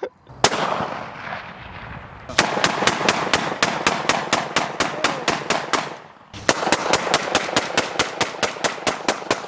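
A single gunshot, then two long strings of rapid gunfire at about six to seven shots a second, with a short break about six seconds in.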